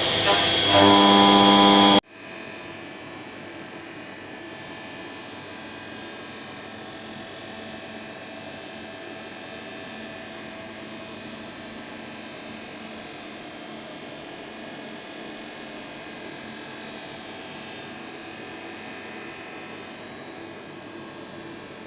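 Music with sustained tones that cuts off abruptly about two seconds in, followed by a steady, even hum with faint tones in it.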